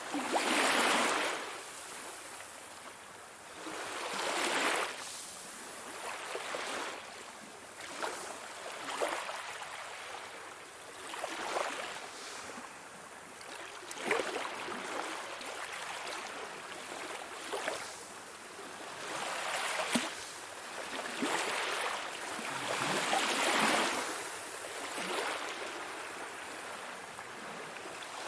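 Sea waves washing in and drawing back, a surge every few seconds, the strongest about a second in and again about three-quarters of the way through, with short splashes in between.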